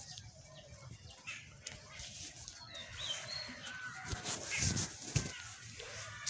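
Birds chirping outdoors in short gliding calls, with a few dull low thumps about two-thirds of the way in.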